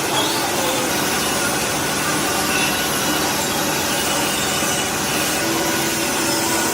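Metalworking shop machinery running steadily, a continuous noise with faint steady tones underneath.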